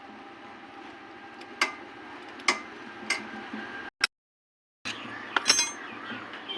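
Metal tools clinking and tapping on motorcycle engine parts: a few separate sharp clinks, then a quick cluster of them near the end, with a brief dead gap in between.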